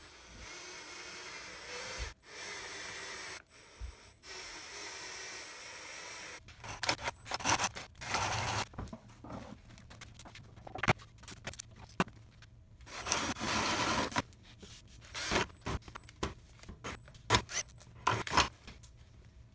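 A power drill boring into a walnut board. It first runs steadily with a twist bit, with two short pauses, then cuts in short loud bursts, with scraping and clicking of wood chips being brushed off the board between them.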